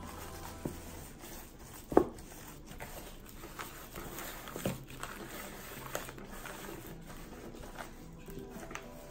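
Gloved hands rubbing seasoning into raw chicken drumsticks in a plastic container: soft wet squishing and handling noises, with a sharp knock about two seconds in and a few lighter taps later. Faint background music underneath.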